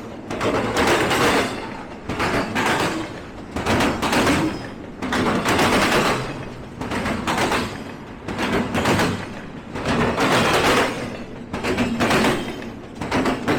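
Passing freight train, its wheels clattering over the rails in repeated clusters of bangs about every second and a half.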